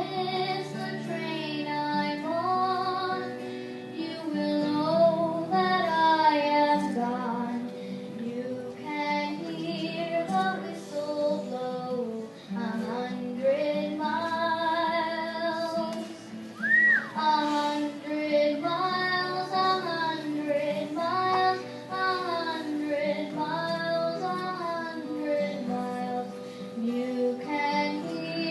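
High voices singing a song with instrumental accompaniment.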